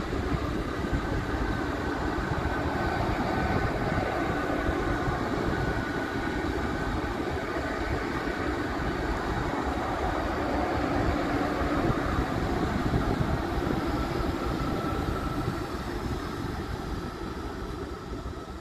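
GWR Hitachi Intercity Express Train passing along the track, its underfloor diesel engines and wheels making a steady rumble with a faint high whine. It fades near the end as the last car draws away.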